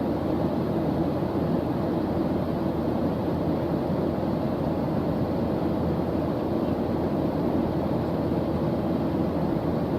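Steady noise track of the white-noise kind used as a focus background, deep and rumbling rather than hissy, unchanging throughout.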